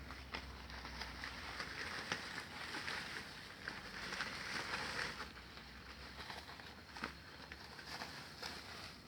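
Scattered sharp crackles and rustles over a steady hiss in woodland, the sound of something moving through undergrowth, loudest for a few seconds in the middle.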